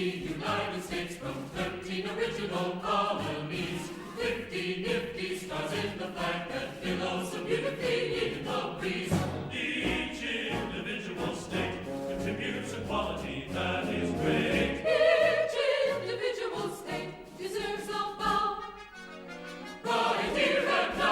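Background music: a choir singing over orchestral accompaniment.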